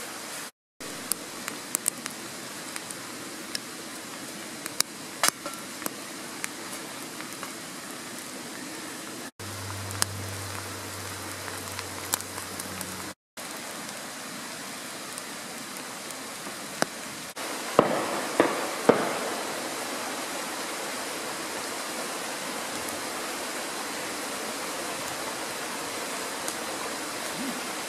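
Wood fire crackling in a small steel firebox stove, scattered sharp pops over a steady hiss. About two-thirds of the way through, a woodland stream takes over, running steadily, with a few sharp knocks just after it starts.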